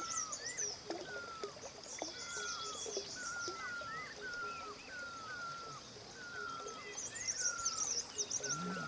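Birds calling: one repeats a short falling whistle about twice a second, while others twitter in high-pitched bursts near the start and again near the end.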